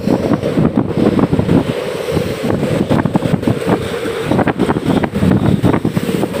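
Strong wind buffeting the microphone in uneven gusts, over the rush of a rough sea.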